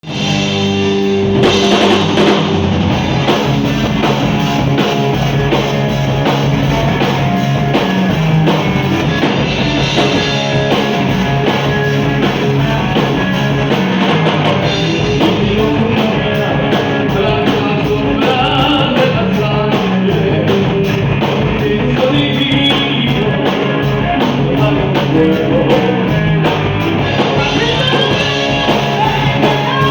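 Heavy metal band playing live, with a drum kit keeping a steady beat under electric guitars and bass.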